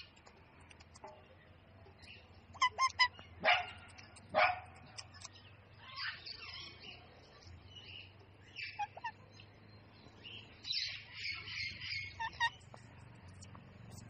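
Indian ringneck parakeets calling: a quick run of short, sharp squawks about three to four and a half seconds in, scattered softer chatter in the middle, and a buzzy stretch of chattering near the end.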